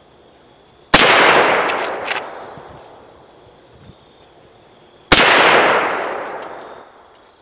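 Two shots from a Henry Lever Action X .410 shotgun loaded with Winchester slugs, about four seconds apart, each a sharp loud report followed by a long echo dying away.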